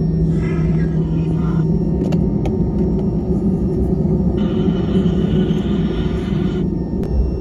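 Steady low cabin rumble of an Airbus A320-family airliner taxiing after landing, from its engines at taxi power and its wheels rolling on the taxiway, heard from inside the cabin.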